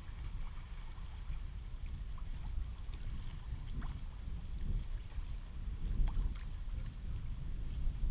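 Wind rumbling on the microphone and water lapping against a kayak's hull, with a few faint light ticks.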